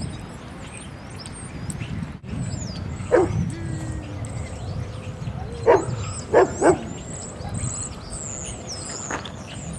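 Dog barking in short, sharp barks: one about three seconds in, three in quick succession around six to seven seconds, and a weaker one near the end, over a steady low rumble.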